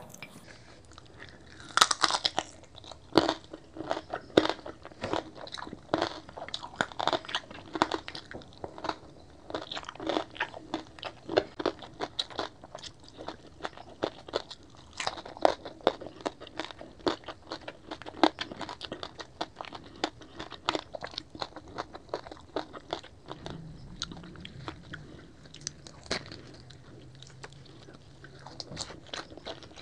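Close-miked crunching and chewing of crispy fried pork belly (lechon kawali): a long run of sharp, crackling bites with wet chewing in between, the loudest crunch about two seconds in.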